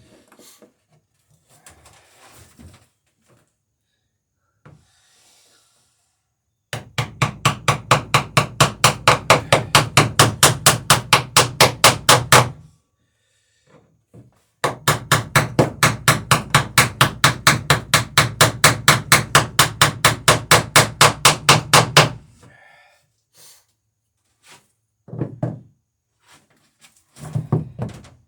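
Hammer tapping a tubular burr set to drive a burr (rove) down onto a rivet through wooden boat planking: two long runs of rapid, even blows, about five a second, with a short pause between them. A few single knocks follow near the end.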